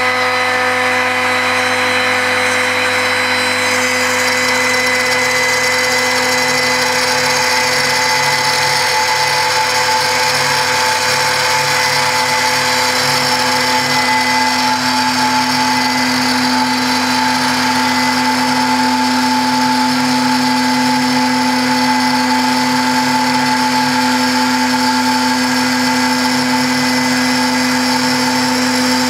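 CNC machining-centre spindle running steadily as its carving bit cuts into a marble slab under coolant water: a constant whine over a hiss of cutting, with a further tone joining about a third of the way in.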